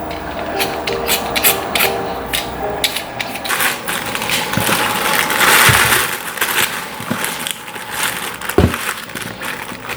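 Kitchen handling noise: a run of clicks and knocks, with a louder crinkling, rustling stretch in the middle, and soft background music early on.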